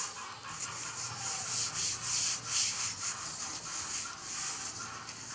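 Gloved hand rubbing a white wipe back and forth across a wood-grain table top, a dry hissing swish made of repeated quick strokes.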